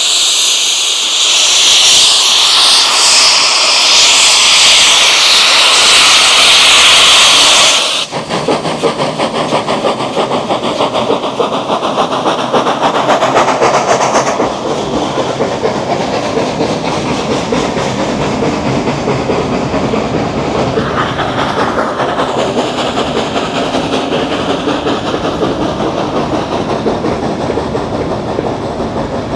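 Beyer-Garratt steam locomotive 6029 departing: steam hissing loudly from its cylinder drain cocks. About eight seconds in this cuts off suddenly, and the train is then heard running with a fast, even clicking rhythm.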